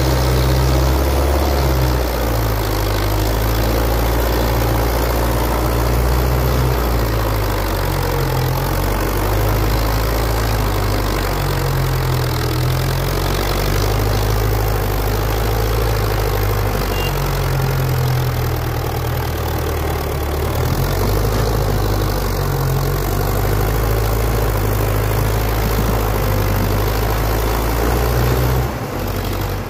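Belarus tractor's diesel engine running steadily and hard under heavy load while pulling a loaded sugarcane trolley, with a short dip in loudness near the end.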